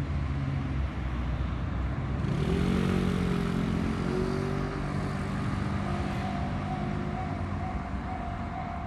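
Road traffic at a Japanese railway level crossing: a vehicle engine speeds up with rising pitch about two seconds in, over steady traffic noise. About six seconds in, the crossing's electronic warning bell starts ringing in a steady repeated tone.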